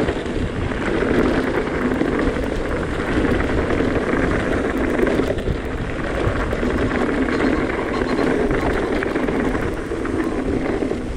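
Electric mountain bike riding fast over a rough, stony track: a steady rush of tyre noise and wind buffeting the microphone, with continual rattling and clicking from the bike over the stones.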